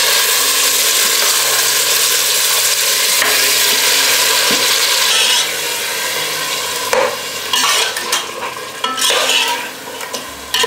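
Yogurt-marinated chicken sizzling loudly as it goes into hot ghee and oil in a pot, stirred with a steel slotted spoon. The sizzle drops off a little after five seconds in, leaving quieter frying with sharp scrapes and knocks of the spoon against the pot.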